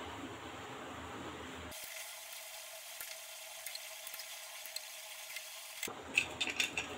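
Steady hiss, with light clinks and scrapes as meat is tipped from a bowl into an aluminium pressure cooker, most of them near the end.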